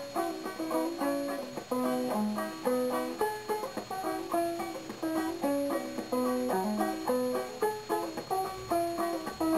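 Background instrumental music: a quick tune of picked, plucked-string notes.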